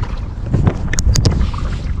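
Wind rumbling on the microphone, with three sharp clicks in quick succession about a second in.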